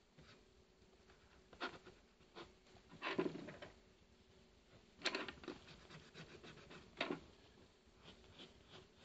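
Graphite pencil scratching on sketchbook paper in short strokes, faint, with a few louder scratches, the longest about three seconds in.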